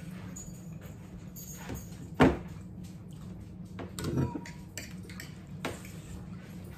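Meal-table sounds: scattered clicks of forks on plates over a steady low hum, with one sharp knock about two seconds in and a duller bump about four seconds in.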